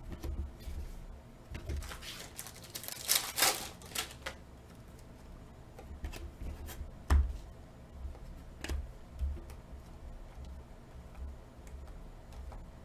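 Stiff glossy trading cards being flicked and slid against one another as a stack is sorted by hand: scattered dry clicks and rustles, a quick run of them about two to four seconds in, and a louder knock a little after seven seconds.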